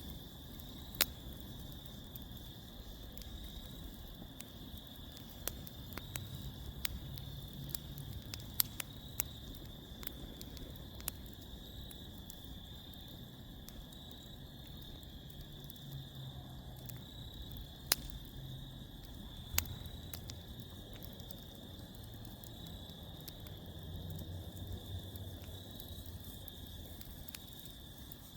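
Wood fire in a fire pit crackling, with sharp pops scattered through, over a steady chorus of crickets chirping.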